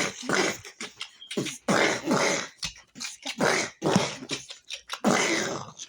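A child imitating gunfire with the mouth: about ten short, breathy bursts, irregularly spaced, some with a brief falling pitch, as pretend sniper shots.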